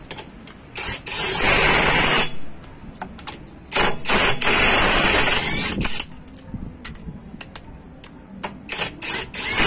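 Topshark TS-PW1 18 V cordless impact wrench hammering on a car's wheel nut in two bursts, the first about a second long and the second about two seconds, with small clicks and knocks between them.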